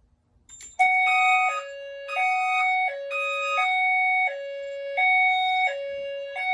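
Fire alarm voice evacuation speaker sounding its hi-lo alert tone after the drill button is held: two pitches switching back and forth about every three-quarters of a second, the alert that comes before the fire evacuation message. It starts about a second in, just after a click.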